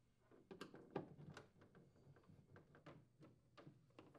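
Faint, irregular clicks and taps of a Phillips screwdriver turning screws out of a plastic refrigerator evaporator fan cover, with hands handling the cover.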